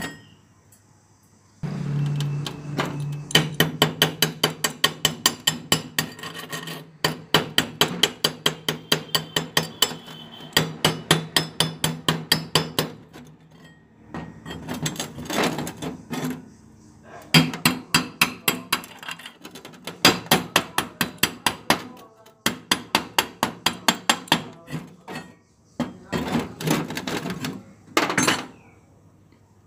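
A hammer rapping quickly on a freshly stick-welded thin steel square tube joint, chipping the slag off the weld. The blows come about five a second, in several runs with short pauses, and the metal rings.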